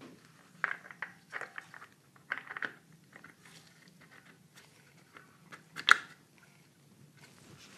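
Light scraping and clattering as a plastic lifter guide tray loaded with hydraulic lifters is handled and seated in an LS1 engine block's lifter valley, with one sharp click about six seconds in.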